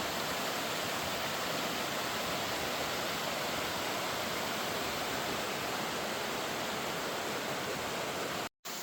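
Steady rushing of water from a small cascade on a creek, with an even hiss and no change in strength. It cuts out abruptly for a moment near the end.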